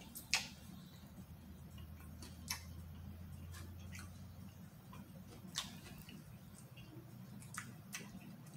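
Mouth sounds of someone eating crispy ranch-seasoned fried chicken wings: scattered sharp smacks and clicks, one every second or two, over a faint low hum.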